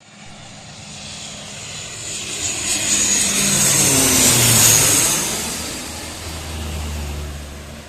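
CASA C295 twin-turboprop transport, with Pratt & Whitney PW127G engines, passing close by. The engine and propeller sound swells to a peak about four and a half seconds in. Its pitch drops as the aircraft goes past, then it fades.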